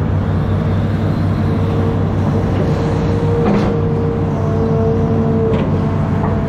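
Amphibious excavator's diesel engine running steadily under work, with a constant whine over the drone as the boom swings and the bucket lowers into the river. A couple of faint clicks come partway through.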